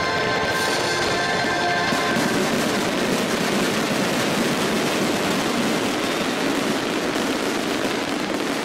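Finale barrage of a large fireworks show: many shells bursting together in a dense, continuous crackle. The show's music, with its held notes, is heard at the start and is swamped about two seconds in.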